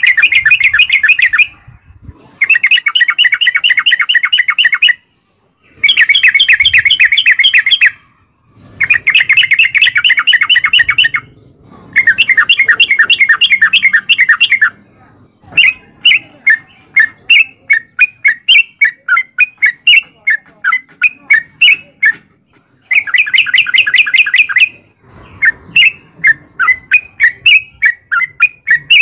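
Yellow-vented bulbul (trucukan) singing in long, rapid rolling chatters of two to three seconds each, with short pauses between them. Midway and again near the end, it switches to a run of separate sharp notes, about three a second.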